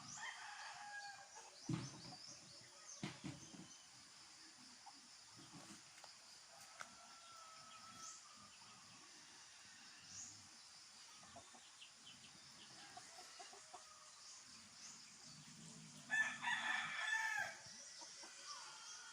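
Free-range heritage chickens clucking, with a rooster crowing loudly about sixteen seconds in for about a second and a half; a shorter call comes near the start.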